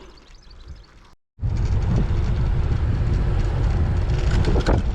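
Wind buffeting the microphone while riding a bicycle downhill at speed: a loud, steady low rumble that starts abruptly after a brief silent gap about a second in. Before the gap there is quieter riding with faint birdsong.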